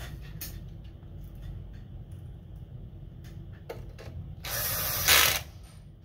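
A small cordless electric screwdriver runs for about a second near the end, driving a screw back into the console's chassis. A few light clicks of handling come before it.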